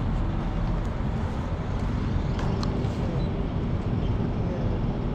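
Steady low rumble of city background noise, such as distant road traffic, with no distinct events.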